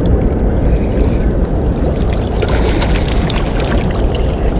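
Steady low rumble of wind and water, with scattered splashes and clicks as a hooked walleye thrashes at the surface while being reeled in toward the rocks.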